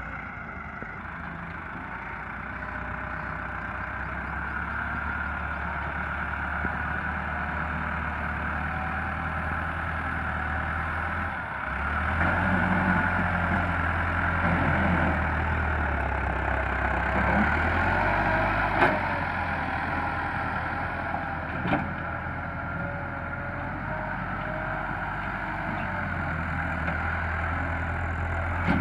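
Massey Ferguson 375 tractor's four-cylinder diesel engine running under load while dragging a rear leveller through tilled soil. Its drone shifts in pitch and level as the load changes and grows louder about twelve seconds in. Two sharp clicks come in the second half.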